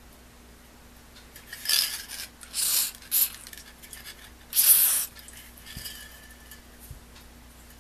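An aerosol spray can hissing in four short bursts, the last and longest a little under five seconds in, as the ratchet mechanism of a Weltrecord ratcheting screwdriver is sprayed.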